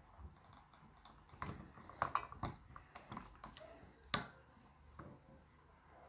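Faint, scattered clicks and taps of a screwdriver working at the small, stiff screws of a mini USB fan's motor cage, the sharpest click about four seconds in.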